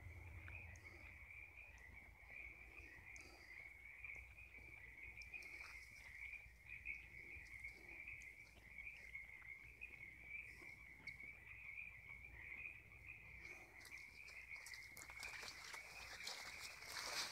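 Faint, steady chorus of many frogs calling from all directions. Near the end come footsteps and rustling close by.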